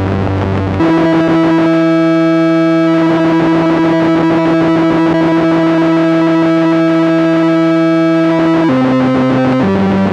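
Korg MS-20 analog monosynth playing a buzzy pulse-wave tone whose width is modulated by the sample-and-hold, so its timbre keeps shifting with a fine rapid flutter. One long held note gives way, near the end, to two short notes at other pitches.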